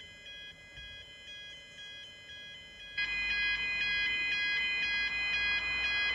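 Electronic level-crossing warning alarm alternating quickly between two pitches, faint at first and clearly louder about halfway through, with a low hum coming in at the same moment.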